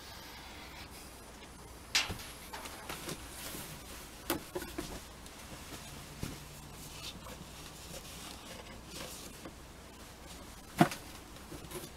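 Scattered knocks and clicks of hands handling plumbing fittings and tools on a plywood workbench, the loudest knocks about two seconds in and near the end, with light rustling between.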